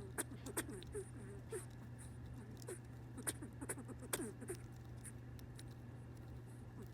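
A pet squirrel moving about, making small scratchy rustles and scuffs with a few sharp, irregular clicks.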